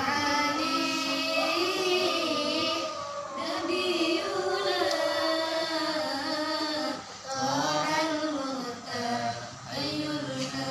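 A girl's voice singing a slow melody unaccompanied, with long held, wavering notes, pausing for breath about seven and nine and a half seconds in.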